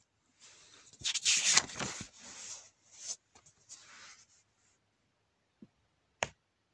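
Paper rustling as a printed book's page is turned and the book handled, loudest about a second in and fading out by about five seconds. A single sharp tap follows about six seconds in.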